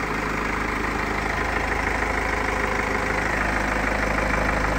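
BMW TwinPower Turbo engine idling steadily after being started, running normally after a steam clean of the engine bay.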